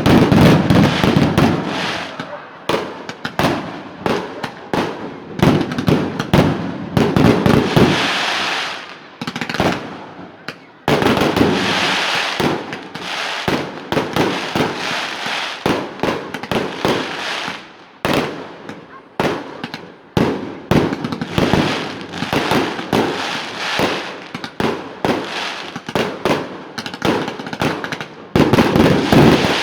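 Fireworks display: a dense, continuous barrage of loud shell bursts, deep booms mixed with crackling and sharp bangs, swelling in heavier salvos every few seconds.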